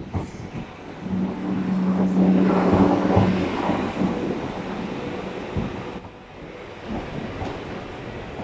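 Electric multiple unit train running into the platform close by: wheel-on-rail and motor rumble swells about a second in, with a steady low hum as the front passes, loudest at about two to three seconds, then settles to a lower, even rumble with a few wheel knocks as the carriages roll past.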